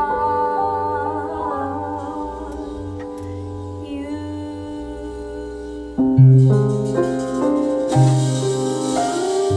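Jazz quartet playing a slow ballad: a female voice sings held notes over piano and bass. About six seconds in the band comes in louder, with deep bass notes, piano chords and cymbals.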